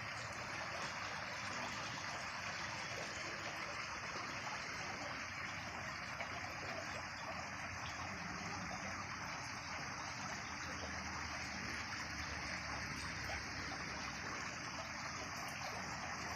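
Water falling and trickling steadily over a garden waterfall, an even, unbroken splashing rush.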